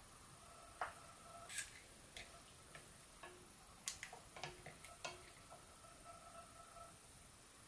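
Faint, scattered clicks and light knocks, about a dozen over four seconds, as a wooden spoon is set into an enamelled pot of water and a metal probe thermometer is dipped in and touches the pot, over a faint steady hum.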